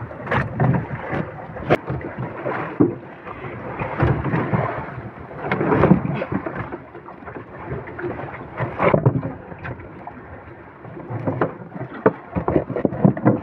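Repeated knocks and thumps of a large yellowfin tuna being hauled and handled against a small boat's hull, over rough wind noise on the microphone.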